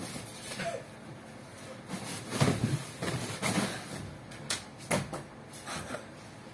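A string of dull thumps and knocks as a person's body lands on a mattress and furniture, the loudest about two and a half seconds in, with a few sharper knocks toward the end.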